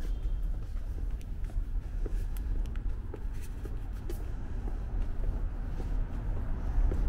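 Urban street ambience: a steady low rumble of distant traffic with scattered light clicks and taps, getting a little louder near the end.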